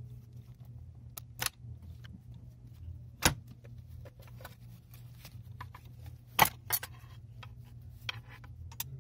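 Scattered metal clicks and scrapes of a steel snap ring being pried from its groove with a long flat-bladed tool. This is the 1-2-3-4 clutch backing plate retaining snap ring in a 6T45 automatic transmission, held under a lot of pressure. Two sharp metallic clacks stand out, about three and six seconds in.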